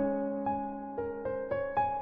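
Background music: soft electric piano or piano playing a slow, gentle melody, one note struck every quarter to half second.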